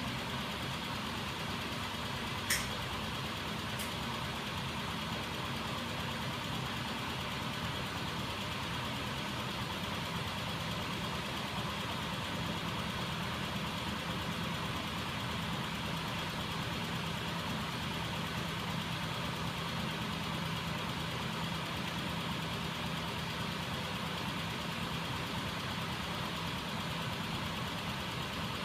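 Homemade magnet-driven crankshaft machine, powered by a small 12-volt electric motor, running steadily with a continuous mechanical whir. There is one sharp click about two and a half seconds in.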